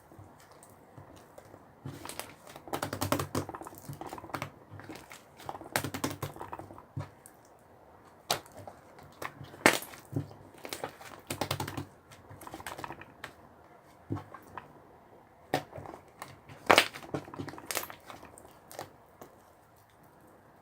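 Slime being squished and pressed by hand, giving irregular runs of sharp clicks and crackles with short pauses between them.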